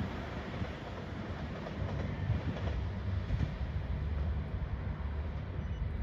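JR Shikoku 2700-series diesel limited express train running at a distance, a steady low rumble of engines and wheels that thins slightly as it moves away.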